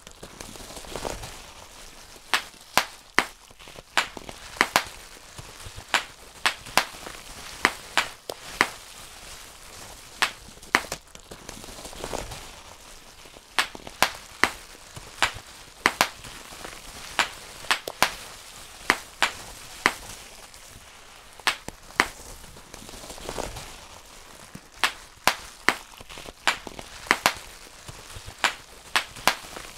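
Bubble wrap bubbles popped one at a time by hand: sharp pops, about one or two a second and unevenly spaced, over a soft crinkling of the plastic sheet.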